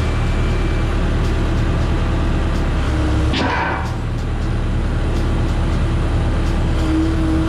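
Mini excavator's diesel engine running steadily just after starting, while the hydraulics raise the dozer blade and then begin lowering it. A short hydraulic whine comes about three seconds in and again near the end as the blade moves.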